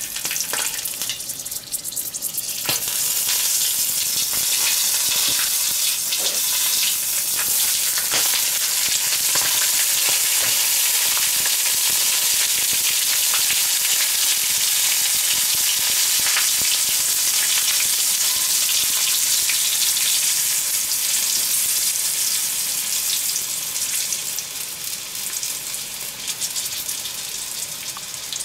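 Giant mealworms (superworms) deep-frying in oil heated to about 300 °C: loud, steady sizzling and crackling of the hot oil. It builds over the first few seconds and eases slightly near the end.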